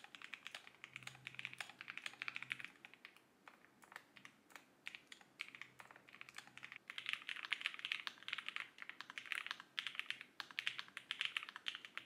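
Typing on a Lofree Flow low-profile mechanical keyboard with linear switches: a quick, steady run of key clacks. The typing thins to a few scattered keystrokes for a few seconds about a quarter of the way in, then picks up again.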